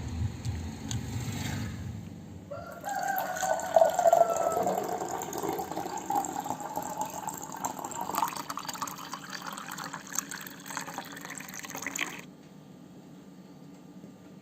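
Water pouring into a container, its pitch rising slowly as the container fills, stopping suddenly near the end. Low thumping comes before it in the first two seconds.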